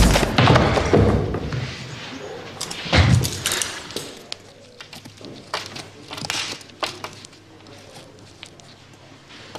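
Scuffle: heavy thuds and knocks of bodies and objects being hit. The loudest blow comes about three seconds in, then lighter scattered knocks fade away.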